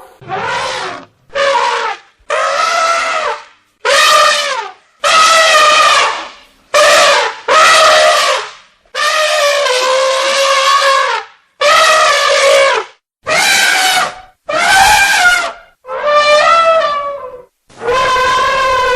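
Elephant trumpeting: about a dozen high, held calls in a row, each lasting from half a second to two and a half seconds, with short pauses between them.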